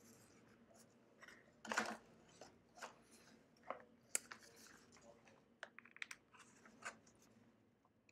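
Faint handling noise: paper rustling and a few small sharp clicks as a printed paper lamp template and a small circuit board are handled.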